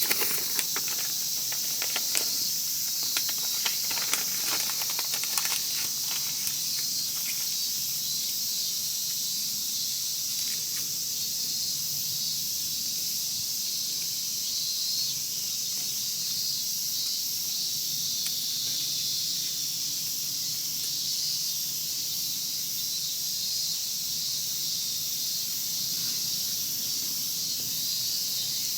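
Wood fire crackling with a run of small pops in the first several seconds, then only an occasional pop, over a steady high hiss.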